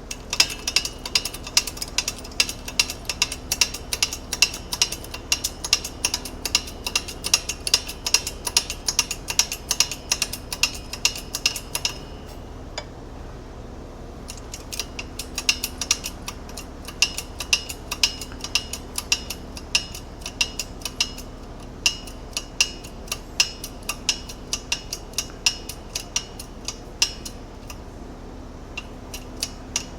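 Shop press being worked to press a bushing into an ATV A-arm: quick, regular metallic clicks with a slight ring, about three a second. The clicking stops for a couple of seconds and then starts again until near the end.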